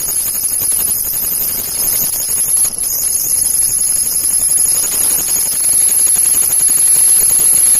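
Loud steady electronic hiss and hum with a thin high-pitched whine: faulty audio in the recording.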